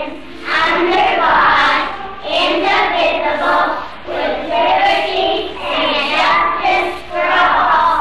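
A group of children singing together in short phrases, with brief breaks between them.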